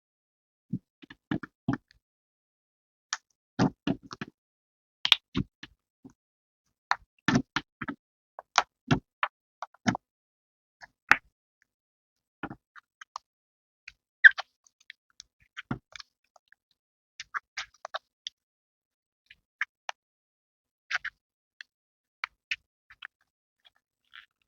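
Slime being mixed with soft clay paste, giving irregular sticky clicks and small pops with short silences between them.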